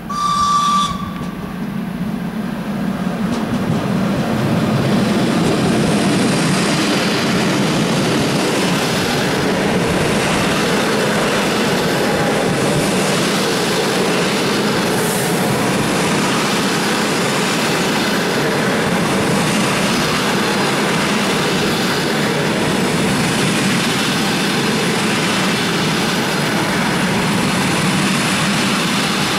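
A short horn blast from a ChS4t electric locomotive, then the steady rumble of the locomotive and its passenger coaches rolling past on the track as the express train arrives. The rumble swells over the first few seconds.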